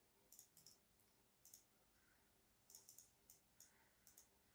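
Faint computer mouse clicks, about a dozen short clicks scattered irregularly over near silence, some in quick pairs or triples.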